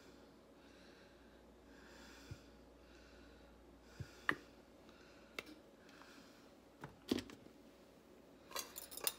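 Faint kitchen handling sounds: a few separate light clicks and taps of containers and utensils, then a brief scraping rustle near the end.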